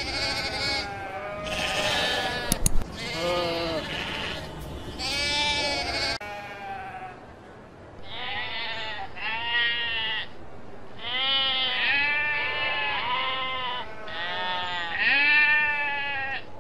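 Sheep bleating: about ten drawn-out calls in a row, each under a second long, with short gaps between them.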